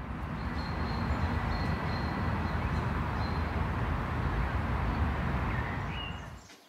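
Outdoor ambience: a steady rush of noise with a heavy low rumble, dying away just before the end, with a faint high bird chirp near the end.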